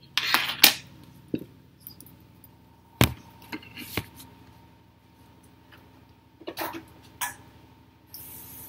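Rustling and knocks of a phone being moved and set down on a table, with a sharp knock about three seconds in, over a faint steady hum.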